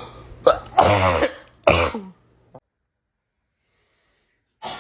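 A person coughing hard three times in about two seconds, the middle cough long and voiced. The sound then cuts off to dead silence, and a new sound begins just before the end.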